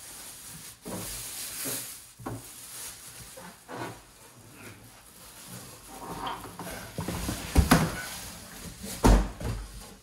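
Microwave packaging being handled: plastic wrap crinkling and cardboard box flaps rustling in irregular bursts, with two loud thumps in the last few seconds as the box is tipped and moved.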